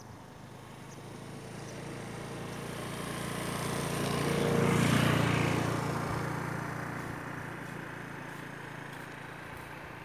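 A motor vehicle passing by: its engine and road noise grow steadily louder to a peak about halfway through, then fade away.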